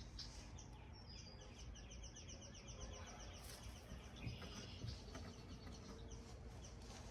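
Faint birdsong: a rapid trill of evenly repeated high notes lasts about two seconds, with scattered single chirps around it over a low background hum.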